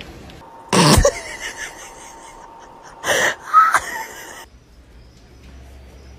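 A cat hissing: two short, loud, breathy hisses about two seconds apart.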